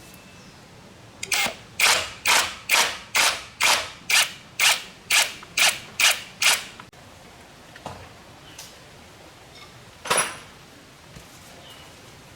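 A quick series of about a dozen sharp strikes, roughly two a second, then a pause and one more strike.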